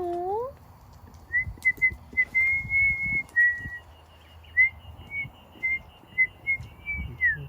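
A string of short, high whistled notes at about one pitch, a few sliding up or down and one held for about a second, with soft low knocks underneath.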